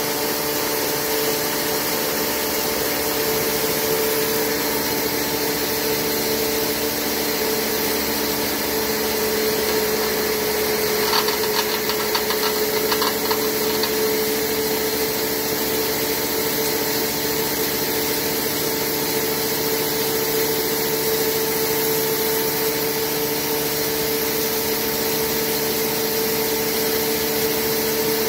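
Model 198 electric hammer mill, a 5.3 hp 220 V single-phase motor, running steadily with a constant hum as wood chips are fed into it and ground through its 6 mm screen. A short spell of rattling clicks comes about eleven to thirteen seconds in.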